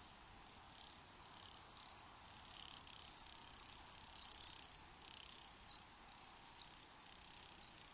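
Faint crickets chirping in repeated high-pitched trills, each about a second long, over a low steady rumble.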